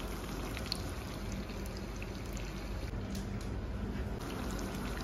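Masala-coated fish pieces frying in hot oil in a kadai: a steady sizzle with scattered small crackles.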